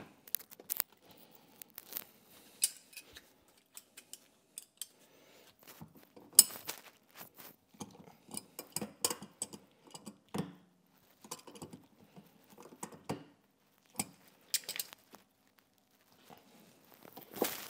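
Scattered clicks, taps and rubbing of plastic dishwasher hose fittings handled with gloved hands while a hose connector is being fitted, with a sharper click about six seconds in.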